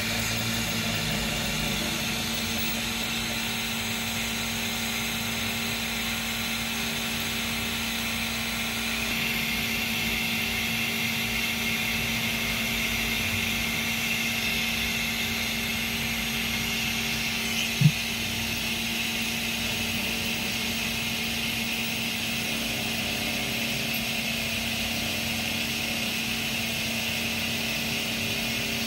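Mini air compressor, salvaged from a car seat-back inflation pump, running steadily as air assist on a diode laser engraver: a constant hum with a higher whine over it that shifts a couple of times. One brief thump about 18 seconds in.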